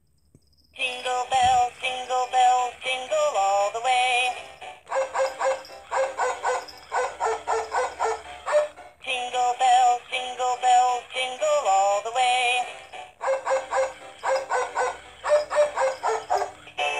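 2004 Hallmark Jingle Pals snowman and dog animated plush playing its song: a synthesized sung tune that starts about a second in, after the button in the snowman's mitten is pressed, and runs in phrases with brief breaks.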